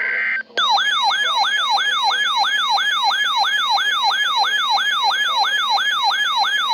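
Electronic siren-style emergency alert tone broadcast over radio: a rapid, repeating falling-pitch yelp, about three and a half sweeps a second, ahead of a tornado warning. A brief high buzzing data tone cuts off just before it starts.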